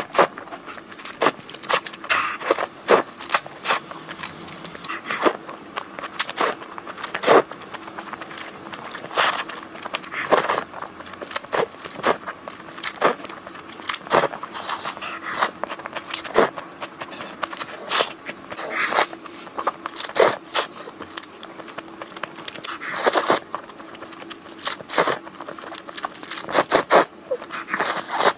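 Close-miked noodle eating: slurping thick, saucy noodles and wet chewing, a dense run of sharp, irregular mouth clicks and crackles. A faint steady hum runs underneath.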